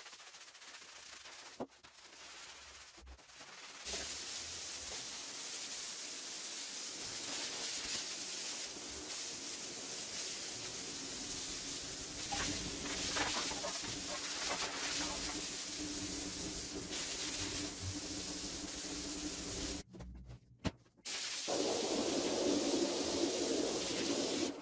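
Pressure washer spraying water onto a carpet: a steady hiss starts about four seconds in, breaks off briefly near the end, then resumes louder and fuller.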